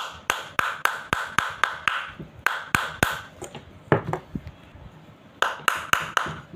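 Hammer tapping on the metal bayonet cap of an LED bulb to fix the wires to the cap's pins without solder. Quick, sharp metallic taps with a short ring, about four a second for three seconds, then a few scattered taps, a short pause and a quick run of four more near the end.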